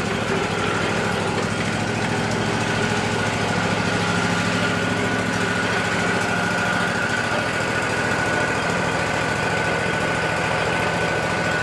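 Wood-Mizer LT40 band sawmill running steadily as it saws a cedar log into boards: an even engine drone with a thin, steady high whine over it.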